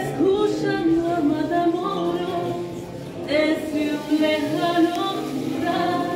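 A woman singing with concert harp accompaniment, in two sung phrases, the second beginning about halfway through.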